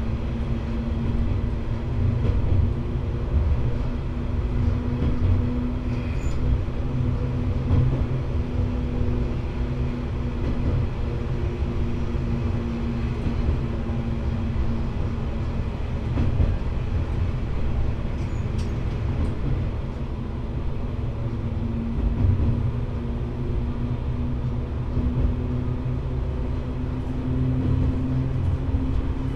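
KiHa 120 diesel railcar running along the line, heard from inside behind the cab: a steady engine drone over the rumble of wheels on rails, the engine note rising near the end.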